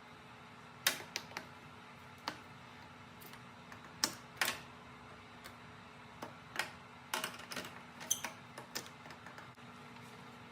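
Irregular sharp metallic clicks and clanks of hand tools and parts as the battery is loosened and pulled from a garden tractor, over a faint steady hum.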